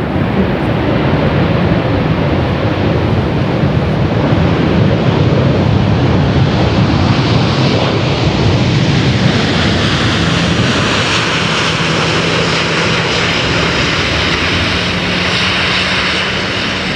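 Airbus A380 jet engines running loud during the landing rollout just after touchdown. About ten seconds in, a steady low hum sets in and the rushing hiss grows stronger.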